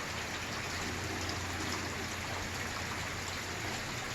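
Steady rain falling during a thunderstorm, with no thunder, over a low steady hum.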